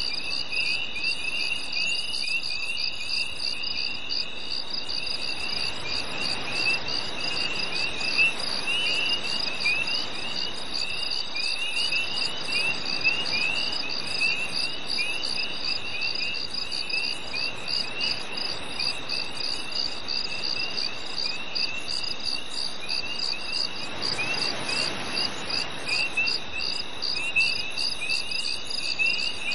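Several crickets chirping together on a summer night: a steady high trill, rapid even chirps just above it, and a slightly lower, irregular chirping, all continuous.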